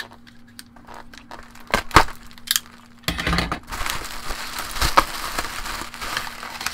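Plastic bubble wrap being handled and pulled open: scattered crackles and two sharp clicks in the first couple of seconds, then continuous loud crinkling of the plastic from about three seconds in.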